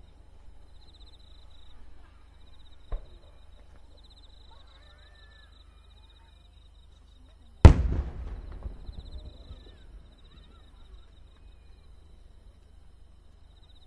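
Aerial fireworks: a small sharp pop about three seconds in, then a single loud shell burst about eight seconds in that echoes and rumbles away over a couple of seconds. Insects chirp steadily in between.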